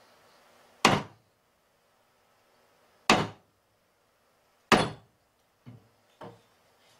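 Buddhist monk's wooden staff (jujangja) struck down hard three times, sharp thuds with a short ring a second or two apart, followed by two lighter knocks near the end. The staff strikes are the customary opening of a Dharma talk.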